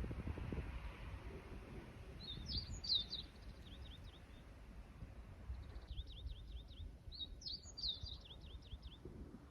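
A small songbird sings two phrases over a low outdoor rumble. Each phrase is a quick twitter followed by a run of repeated down-slurred notes.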